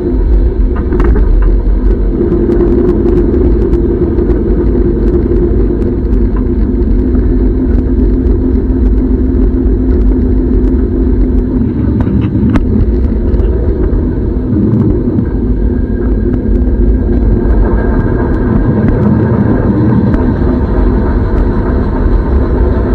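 Steady low rumble of a moving train heard from on board, wheels running on the track. From about 17 seconds in, a louder rattle joins as a freight train's wagons pass close alongside.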